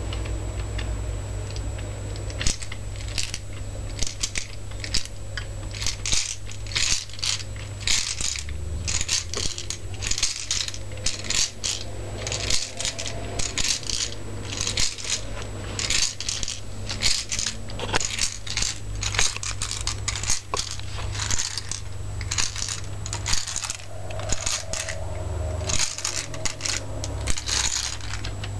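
Lego model of a No-Limit fairground ride working: its plastic gears and bricks click and clatter irregularly, several times a second, as the arm swings round, over a low steady hum.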